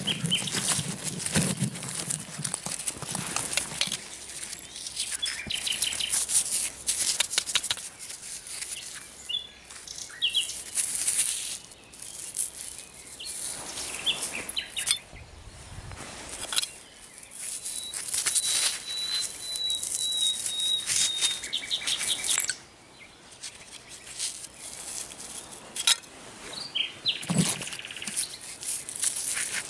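Gloved hands scraping and rummaging through loose soil and handling rusty metal scrap, with dense rustling and scraping throughout. A songbird sings in the background, with one long, steady high whistle a little past the middle.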